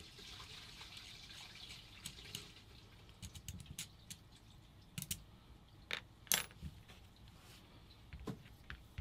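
Faint handling noise of a hex wrench working on a paintball marker's trigger frame: a soft rustle, then scattered small metallic clicks and taps, a few sharper ones about halfway through.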